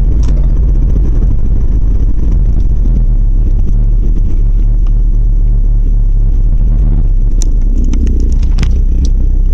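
1990 Volvo 740 running with a loud, steady low rumble and rattle from the driveshaft, which the owner traces to a worn center driveshaft support bearing. A few sharp clicks come near the end.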